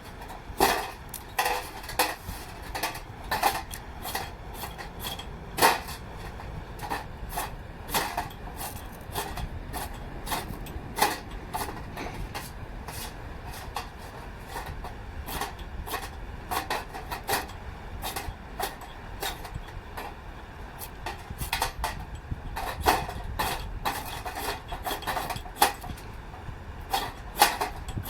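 Dozens of sharp, irregular clicks and light metallic clinks from attempts to light a stick of fatwood in a small sheet-metal fire stand; the fatwood is slow to catch.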